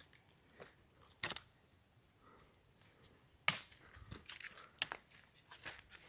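Faint, scattered crunches and snaps of footsteps on twigs and leaf litter, with a couple of sharper cracks.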